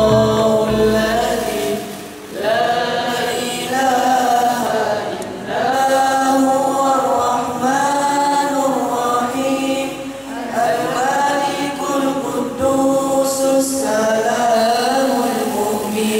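A group of teenage boys singing together into handheld microphones, in sung phrases of a few seconds with short breaks between them.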